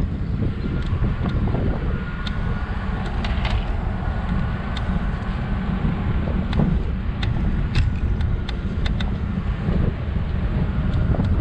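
Scooter riding over asphalt: a steady low rumble of wind buffeting the microphone and tyre noise, with many small clicks and rattles from bumps in the road and a faint steady whine.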